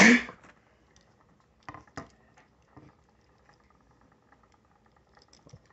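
A short, loud rush of noise at the very start, then quiet handling of a die-cast toy car: a few light clicks and taps as it is turned over in the fingers.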